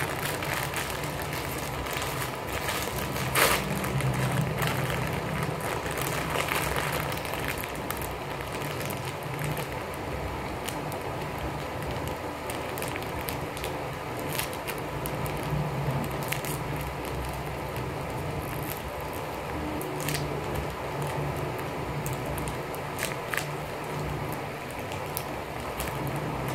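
Plastic candy pouch crinkling and crackling as it is handled and torn open, and a wrapped piece inside is pulled out. The crackles come irregularly, over a steady background hum.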